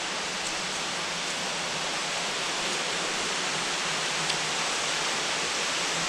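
Waterfall with plenty of water running off it, a steady rushing hiss that grows slightly louder over the few seconds.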